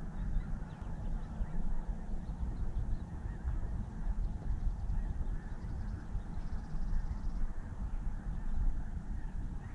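Wind rumbling on the microphone: a fluctuating low rumble, with faint calls in the background.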